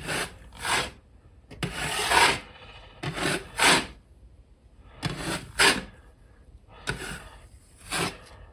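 Metal drywall knife scraping joint compound in a series of short strokes, each a brief rasping swish, as a thin final coat of mud is spread and smoothed with the blade held flat.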